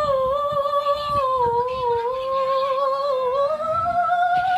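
A woman's voice holding one long high sung note, wavering slightly, dipping a little and then rising near the end.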